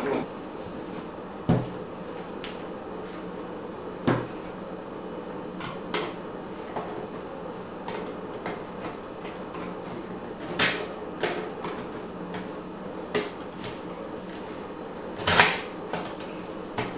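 Scattered clicks and light knocks of a screwdriver and small metal parts being handled on a tabletop while Torx screws are taken out of a car radio unit's metal casing. The loudest, a short clatter, comes about fifteen seconds in.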